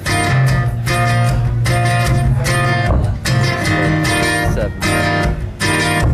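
Acoustic guitar strumming chords in a steady rhythm, the instrumental opening of a song, with a full low end and brief pauses between phrases.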